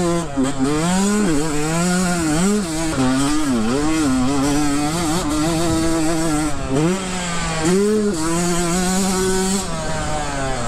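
Motocross dirt bike engine revving hard as it is ridden, its pitch climbing and dropping again and again with throttle and gear changes.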